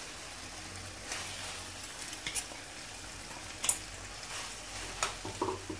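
Mutton sizzling as it fries in a stainless steel kadai, while ground masala powder is tipped in from a steel bowl, with a few sharp clinks and scrapes of a steel spoon against the metal; the loudest clink comes a little past halfway.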